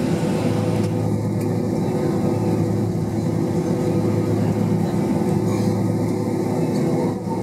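Steady cabin drone of a Boeing 767-300ER's jet engines running at taxi power, heard from inside the passenger cabin as a constant hum with several steady tones.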